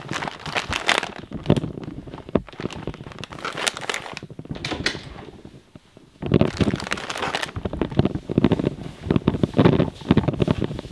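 Gift-wrapping paper crinkling and rustling as wrapped presents are handled, carried and set down, in irregular bursts with a short lull a little past halfway.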